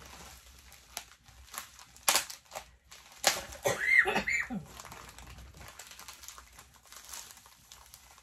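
Plastic poly mailer crinkling and rustling as it is handled and opened by hand, with a sharp crackle about two seconds in and a brief pitched squeak around three to four seconds in.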